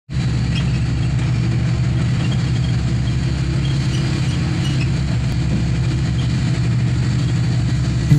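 Engine and road noise of a moving vehicle heard from inside its cabin: a steady low hum with no changes in speed.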